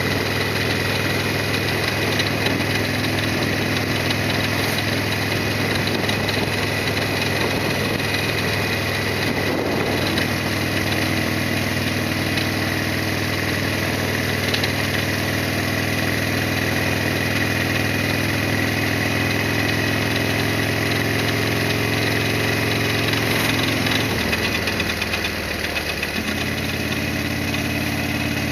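Harley-Davidson Sportster 1200's air-cooled V-twin engine running at steady revs, its note dropping and settling at a new pitch about three-quarters of the way through.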